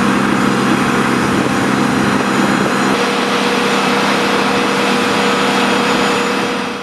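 Steady, loud engine drone with a low hum inside the cargo hold of a C-5M Super Galaxy; a steady higher whine joins about three seconds in, and the sound fades out right at the end.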